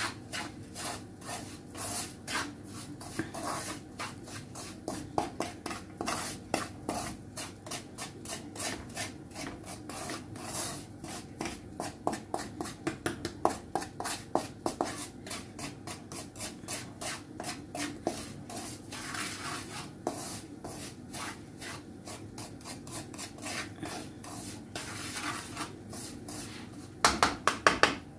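Wooden spatula scraping and stirring dry semolina in a frying pan as it is dry-roasted for upma: a long run of quick, short scrapes, with a louder burst of strokes near the end.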